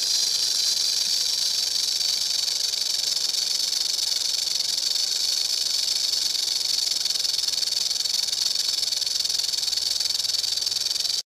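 Snake sound effect: a steady, high-pitched hiss that cuts off suddenly near the end.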